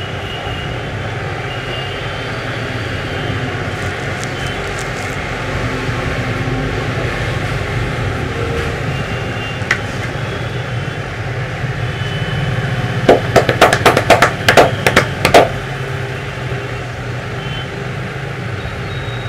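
A barber's hands slapping and patting a customer's head in a quick run of about a dozen sharp slaps lasting a little over two seconds, about two-thirds of the way through. Steady street traffic noise runs underneath, with a single sharp click a few seconds earlier.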